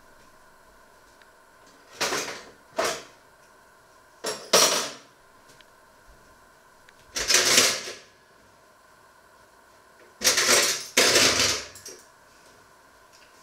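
Kitchenware being handled: short bouts of dishes and cutlery clattering and scraping, a pair about two seconds in, then single bouts near the middle, and a longer double bout near the end.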